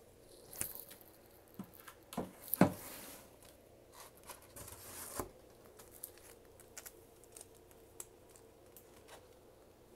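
Comic books in plastic bags being handled: the sleeves crinkle and rustle, with scattered clicks and a sharper knock about two and a half seconds in. A longer rustle follows, then only light ticks in the second half.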